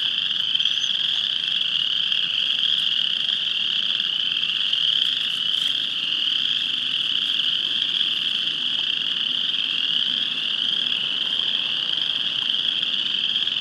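A dense, deafening chorus of spring peepers with other frogs mixed in: countless short, high, rising peeps blending into one continuous din.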